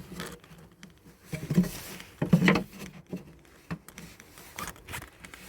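Small wooden strips knocking and clattering against the chipboard cage as they are handled and fitted into place, a few irregular knocks with the loudest about two and a half seconds in.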